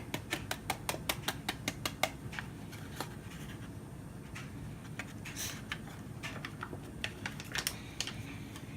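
Gravy mix being poured and tapped into a plastic protein shaker bottle, making a quick run of light clicks and taps, about four or five a second for the first two seconds, then scattered ones.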